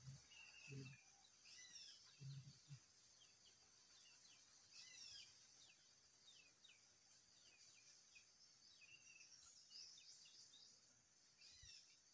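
Near silence with faint birds calling: short chirps and quick falling notes, repeated on and off throughout. A few soft low thumps come in the first three seconds.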